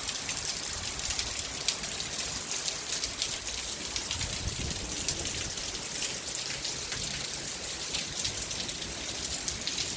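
Heavy rain falling steadily, a dense hiss of drops pattering on surfaces, with wind gusting on the microphone.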